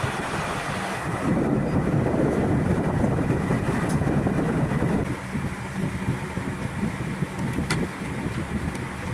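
Note counting machine running with a steady mechanical whir, louder for a few seconds in the first half, then settling a little quieter.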